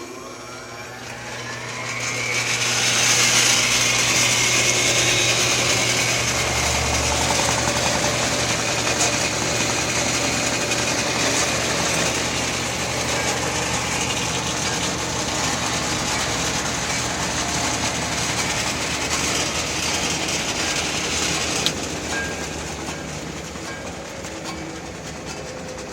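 Homemade wood chunker driven by an electric motor through a belt, started with its new switch. It winds up over the first two seconds, then runs steadily with a mechanical clatter over a low hum, and gets somewhat quieter about 22 seconds in.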